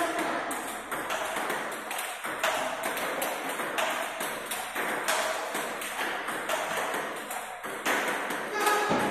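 Table tennis ball being struck by a paddle and bouncing on the table in a forehand topspin drive drill: sharp clicks, about one or two a second, irregularly spaced.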